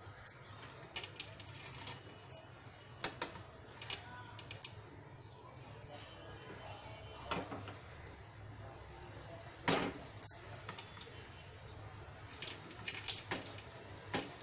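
A metal spoon scraping and tapping on toasted bread and the tray as chicken tikka filling is spread. There are scattered sharp clicks over a faint low hum.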